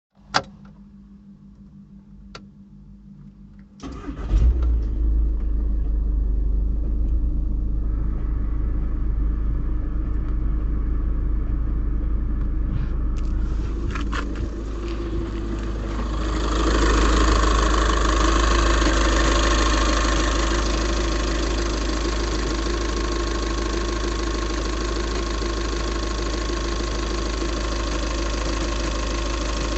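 An engine is started about four seconds in, after a click, and then runs steadily at idle, growing louder about sixteen seconds in. This is the knock after a start that the video is about.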